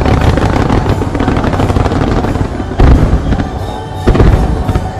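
Aerial fireworks going off in rapid succession with dense crackling, and two loud booms about three and four seconds in. Music plays underneath.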